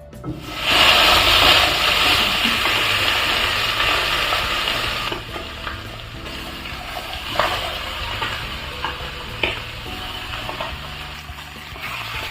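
Chicken pieces sizzling in hot olive oil as they brown in a pan. The sizzle starts suddenly about half a second in, is loudest for the first few seconds and then settles lower, with a few sharp clicks.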